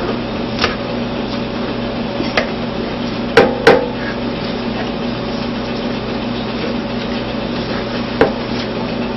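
Knife knocking against a cutting board while roast beef is sliced: a handful of separate knocks, the loudest two close together about three and a half seconds in, over a steady low hum.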